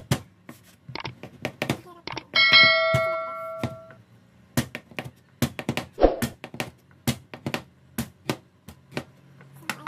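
Meat cleaver chopping marinated pork spare ribs on a cutting board: sharp chops at about two to three a second, unevenly spaced. About two and a half seconds in, a bright chime rings out and fades over about a second and a half, louder than the chops.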